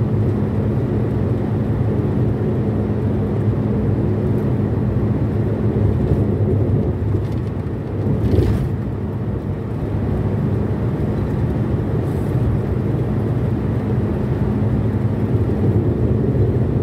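Steady drone of engine and tyres heard from inside a Toyota car cruising at highway speed. About eight seconds in, a brief louder rush.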